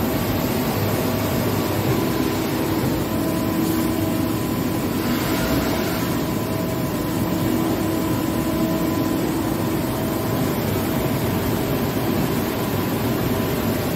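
DMG Mori NTX2000 turn-mill machining center running a machining cycle: a steady rush of coolant spray over the hum of the spindle and drives, with a faint tone that comes and goes.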